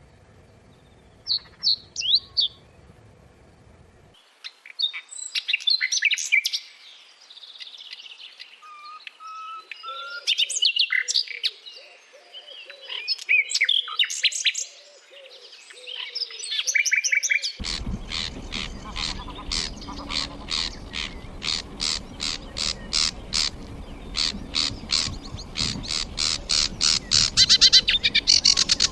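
Songbirds singing and chirping, in recordings spliced one after another. First come a few short high chirps. Next is varied song with some short whistled phrases. From a little past halfway, a fast, even run of repeated chirps speeds up and grows louder toward the end.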